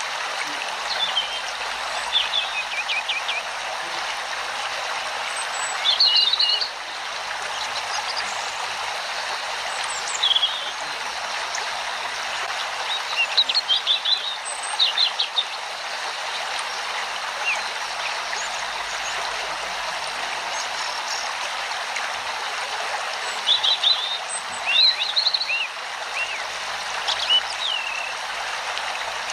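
Steady rush of flowing stream water with small birds chirping in short bursts every few seconds.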